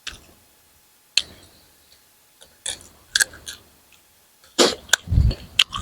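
Eating sounds: sharp wet smacks and clicks of chewing, a few isolated ones early on, then a louder cluster with low thumps near the end.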